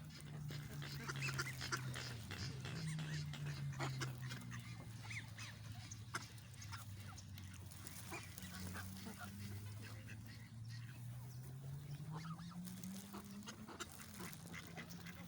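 A flock of ducks and geese calling, with scattered short honks and quacks throughout. Under them runs a low steady drone whose pitch slowly sinks and then rises again near the end.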